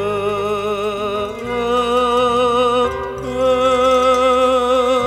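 A male solo voice sings long, held notes in an Arabic religious song, with wide vibrato and melismatic turns. Beneath it is a low held accompaniment, and the chord shifts about 1.5 s and 3 s in.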